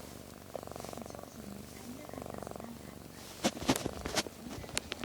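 A domestic cat purring in two long rattling stretches, one per breath. About three and a half seconds in comes a quick cluster of short, sharp bursts, louder than the purr.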